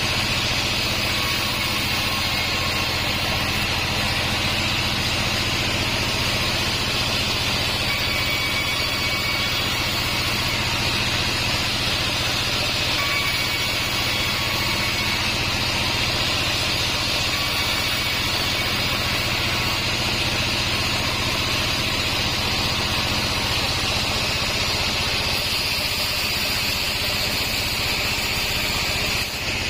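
Bandsaw36 band sawmill running steadily: an even machine hum with a strong hissing, whirring upper band and no breaks.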